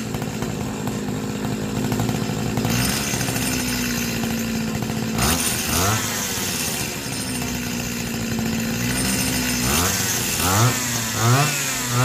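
Small two-stroke grass-trimmer engine running, idling steadily, then revved up and back down about halfway through and in a few quick throttle blips near the end.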